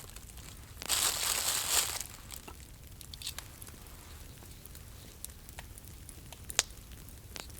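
Dry material rustling and crinkling for about a second, then scattered small crackles and two sharper pops near the end.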